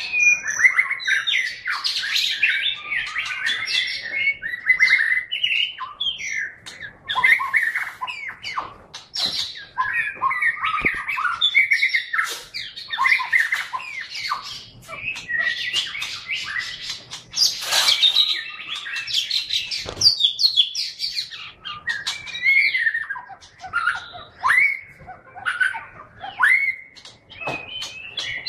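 White-rumped shama singing a long, varied song of quick whistled phrases and gliding notes mixed with sharp, rapid chattering notes, with hardly a pause.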